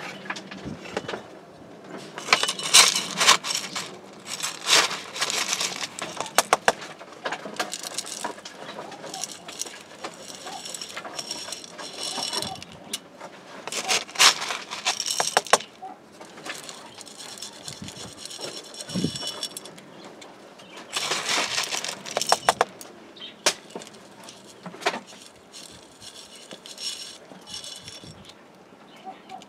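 Small black gravel stones scooped from a plastic jug and tipped onto potting soil as a decorative top layer, clattering and rattling in repeated bursts of sharp clicks.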